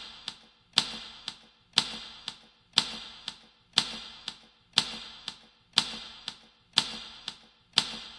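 A clock ticking, an even tick-tock at about one strong tick a second with a softer tock about half a second after each.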